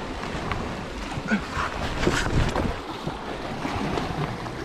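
Sea waves washing and splashing against the rocks, with wind buffeting the microphone.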